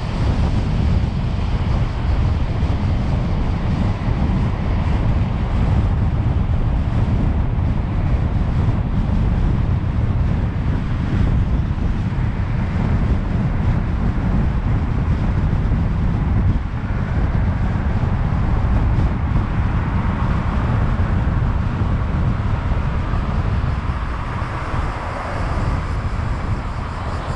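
Road and wind noise of a moving car: a steady low rumble with wind on the microphone.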